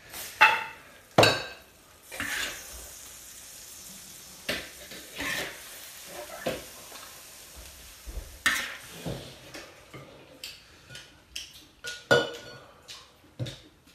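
Kitchen clatter: a metal spatula clanking and scraping against a wok and dishes, with sharp knocks throughout and a short sizzling hiss about two seconds in.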